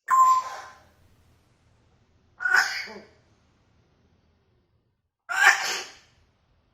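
African grey parrot sneezing three times, about two and a half seconds apart, each a short sharp burst that fades within a second.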